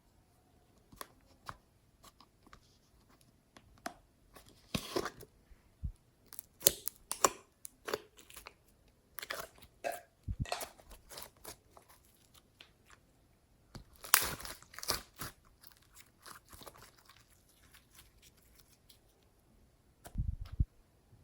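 Clear slime being squished and stretched by hand, making sticky crackles and pops in irregular clusters, with a dull thump near the end.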